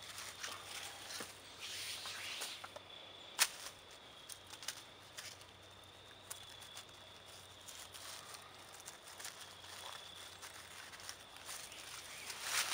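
Soft rustling and small clicks of paracord being wrapped and pulled around the joint of a wooden pole frame lying in dry leaves, with one sharp click a little over three seconds in. Louder crunching of dry leaves underfoot near the end.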